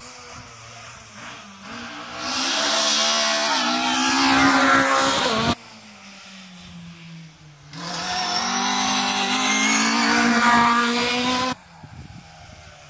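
Rally car engines at high revs going past twice, engine pitch rising and falling as they drive through. Each pass lasts about three and a half seconds and cuts off suddenly.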